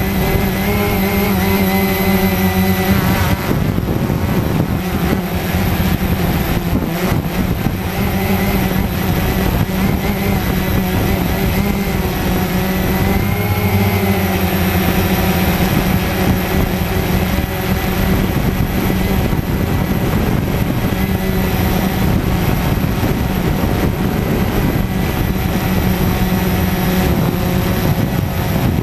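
Cheerson CX-20 quadcopter's brushless motors and propellers running in flight, heard close up from a camera on the drone: a steady, loud propeller whine whose pitch shifts as the motors speed up and slow down a few seconds in and again about halfway through.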